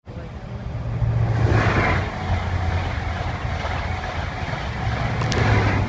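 Class 165 Turbo diesel multiple unit's underfloor diesel engines running while it stands at the platform, a steady low throb that swells louder with a hiss about a second and a half in and again near the end.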